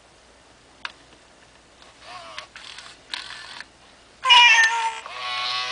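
FurReal Friends Lucky toy cat meowing through its speaker: a click about a second in, then three short mews, then two louder, longer meows near the end.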